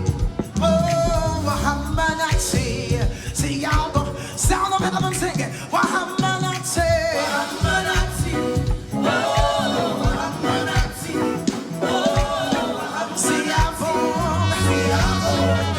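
Live gospel praise-and-worship music: voices singing over band accompaniment with a steady beat.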